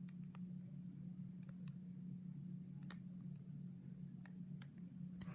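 Scattered light clicks, about eight in a few seconds, as a stiletto-style switchblade comb is handled and fiddled with, over a steady low hum.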